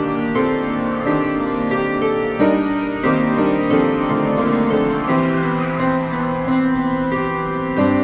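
Piano playing a slow hymn tune in sustained chords that change every second or two.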